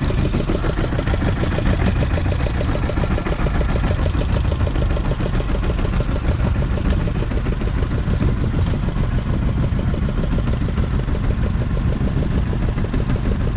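Engine on a fishing boat running steadily at idle with a fast, even chugging.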